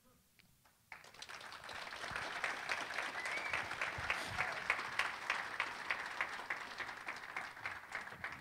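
Congregation applauding: a burst of clapping that starts suddenly about a second in, holds steady, and dies away near the end.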